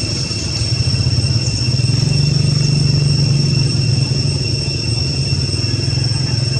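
A steady low engine drone that swells a little about two seconds in, under a constant high-pitched whine.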